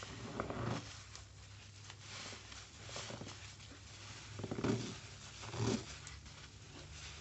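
A soap-drenched sponge squeezed in gloved hands in a tub of suds: wet squelches and squirting lather. Louder squelches come about half a second in and twice more around four and a half and five and a half seconds, over a constant crackle of foam.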